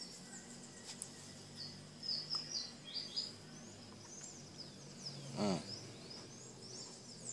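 Small birds chirping and twittering in short high phrases. About five and a half seconds in, a brief louder sound slides steeply down in pitch.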